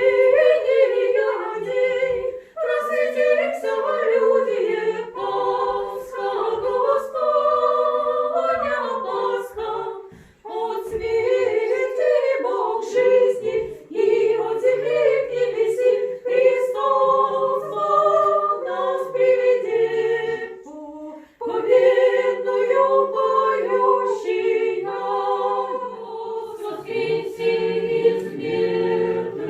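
Orthodox church choir singing unaccompanied, several voices in harmony, in phrases with short breaks between them.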